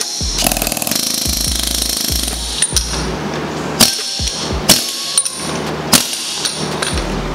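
Snap-on pneumatic air hammer hammering on a steel steering column to drive off its upper section. It rattles in a long rapid burst over about the first two seconds, then in short sharp bursts.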